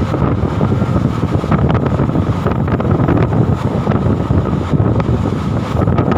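Diesel-hauled train running, a steady low rumble with wind buffeting the microphone.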